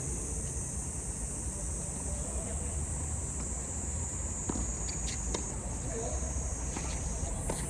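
A steady high-pitched drone of summer insects (cicadas) over a low rumble, with a few sharp knocks of a tennis ball being struck and bouncing in the second half.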